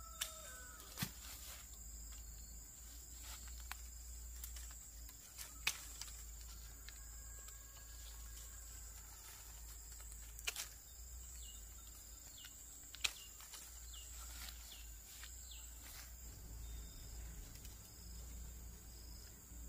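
Steady high-pitched chirring of insects, crickets or similar, in quiet rural surroundings, with a dozen or so sharp clicks and knocks scattered through it. A rooster's crow dies away at the very start.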